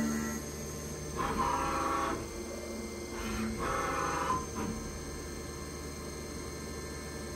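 CNC mill's end mill cutting a metal part, giving two whining bursts about a second long, one about a second in and one near the middle, over a steady low machine rumble.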